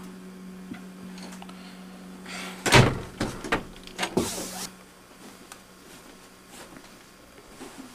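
A single thump about three seconds in, followed by a few lighter knocks and clicks, over a steady low hum that stops about five seconds in.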